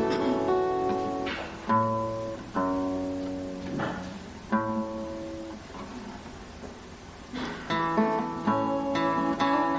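Acoustic stringed instrument: single chords strummed and left to ring, a quieter pause in the middle, then steadier strumming near the end.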